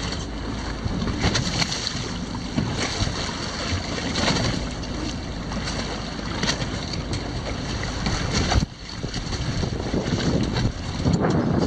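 Wind buffeting the microphone over sea water sloshing against a boat's hull, rough and uneven, with a sudden brief dip about three-quarters of the way through.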